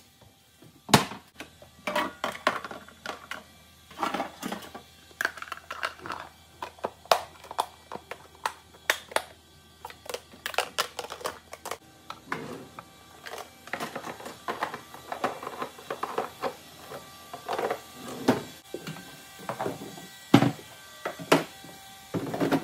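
Kitchen tidying noises: an irregular run of knocks, clicks and clatters as cabinet doors are opened and shut and plastic food containers and other items are handled and put away.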